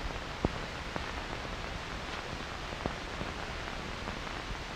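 Steady hiss of an old film soundtrack, with a few scattered clicks.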